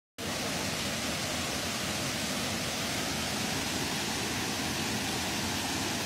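Steady rush of a low, wide waterfall spilling over a rock ledge into a river.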